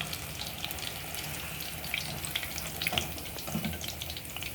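Batter-coated chicken kabab pieces deep-frying in hot oil: a steady sizzle with a scatter of small crackles and pops. The pieces are fully cooked.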